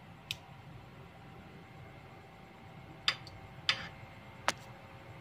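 Metal kitchen tongs clicking and clinking against the wire rack and glass bowl of an air fryer while turning strips of cooked pork belly: one click near the start, then three more in the last two seconds, the third with a short rattle.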